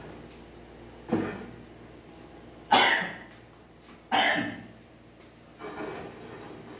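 A man coughing four times, short sharp coughs about one and a half seconds apart. The second and third are the loudest.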